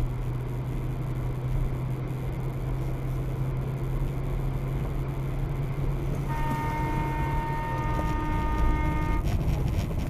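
Car's engine and road noise heard from inside the cabin while driving, then a car horn sounds about six seconds in and is held for about three seconds, a warning honk at a car swerving toward the dashcam car. A few sharp clicks follow just after the horn stops.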